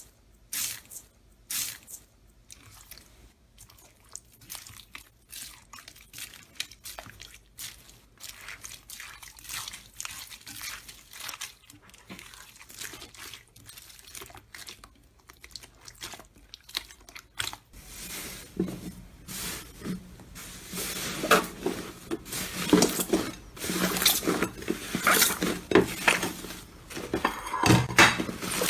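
Slime being squeezed and poked up close, giving a run of wet crackling clicks and pops. They are sparse and soft at first and become denser and louder about two-thirds of the way through.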